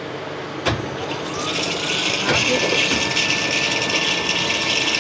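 A gearbox being run in reverse under test: a knock about a second in, then a whine that rises in pitch as it spins up and settles into a steady whine with a hissing rush of gear noise.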